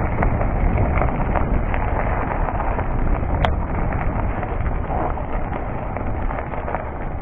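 Wind rumbling on the chest-mounted action camera's microphone, mixed with the rolling crunch and rattle of a full-suspension mountain bike's tyres on a gravel trail, with scattered small clicks and one sharper click about three and a half seconds in.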